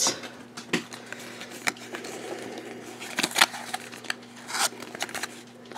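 Fingers folding and popping a small cardboard blind box into shape: a handful of light clicks and scrapes of card against card.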